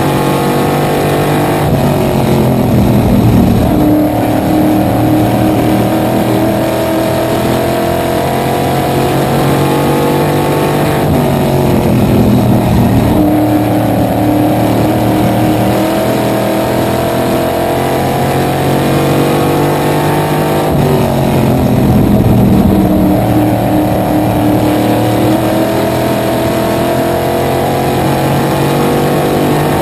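Small-block supermodified race car's V8 engine at racing speed, heard from inside the cockpit. Its pitch drops three times as the driver lifts for the turns, then climbs back as the car accelerates out onto the straightaway.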